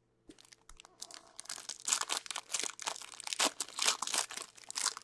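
Foil wrapper of a hockey card pack being torn open and crinkled by hand: a few faint crackles at first, then dense crinkling and tearing from about a second in.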